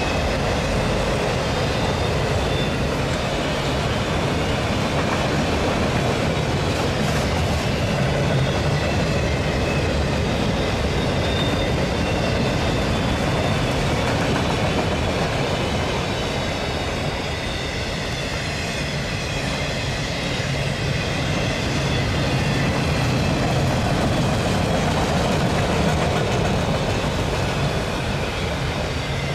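Freight train of autorack cars rolling past: steady noise of steel wheels on rail, with faint high-pitched wheel squeal.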